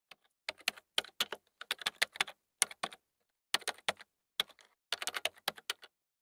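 Typing on a computer keyboard: quick, irregular key clicks in short runs with brief pauses, stopping shortly before the end.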